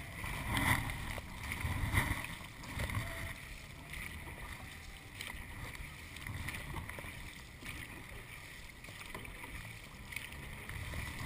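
Dragon boat paddles digging into the water and splashing with each stroke as the crew races, with the splashes coming roughly a second apart.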